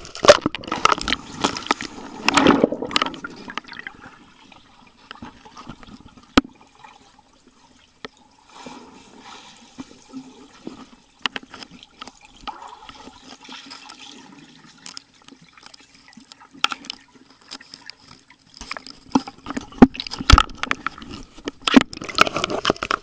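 Splashing and bubbling as a camera in an underwater case plunges into a swimming pool, then muffled underwater sound with scattered sharp knocks while a dog paddles past. Loud splashing again near the end as the camera breaks the surface.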